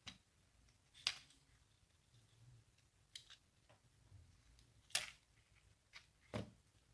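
Handful of sharp plastic clicks and snaps, about five spread out, the loudest about five seconds in, as a Lenovo A526 smartphone's circuit board is pried and lifted out of its plastic housing.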